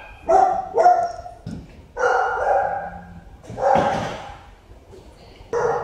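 A dog barking, about four separate barks with short pauses between them.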